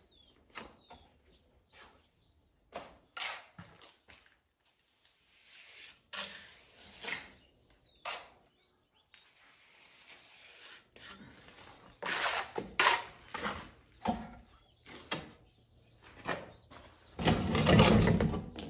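Steel plastering trowel scraping wet cement mortar on a hawk and spreading it onto a wall, a series of short scrapes and knocks, with a louder, longer rough scrape near the end at the wheelbarrow.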